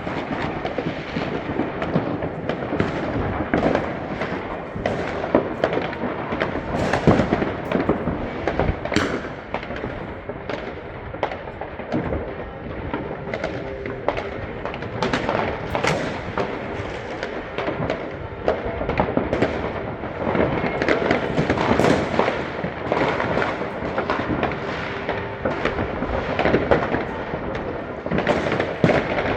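New Year's Eve fireworks and firecrackers going off nonstop, a dense jumble of overlapping bangs and crackling with louder single reports every second or so.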